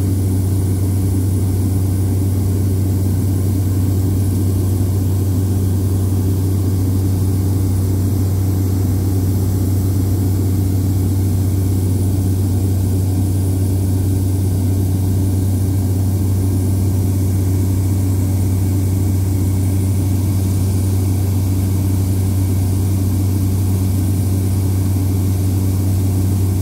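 Seaplane's propeller engine heard from inside the cabin in flight: a loud, steady low drone that holds one pitch throughout.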